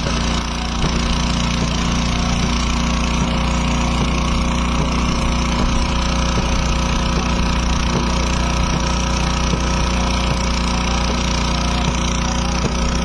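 An engine running steadily, with a constant drone.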